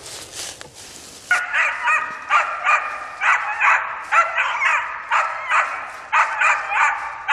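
Hunting dog barking at a downed wild boar, steady repeated barks at about two a second, starting about a second in.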